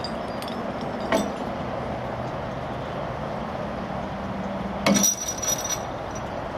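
Canal lift bridge of timber and metal being raised. It gives a metallic clank about a second in and a louder, ringing clank with a few smaller knocks near five seconds in, over a steady background rumble.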